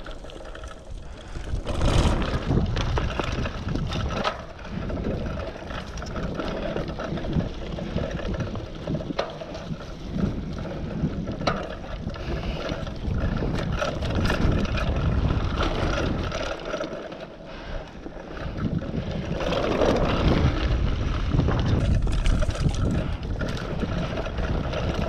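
Mountain bike rolling fast down a dirt singletrack: tyres rumbling over packed dirt and leaf litter, with frequent clicks and rattles from the bike over bumps, and wind buffeting the microphone.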